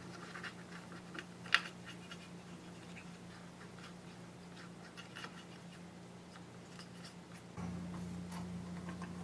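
Faint scratching and small ticks of a cotton swab scrubbing residue off a circuit board, with one sharper click about a second and a half in. Under it runs a steady low hum that grows louder near the end.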